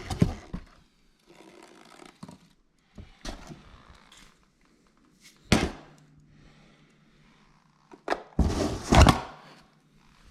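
Hard objects being handled and set down: a few separate clunks, then a rattling clatter about eight to nine seconds in, the loudest part.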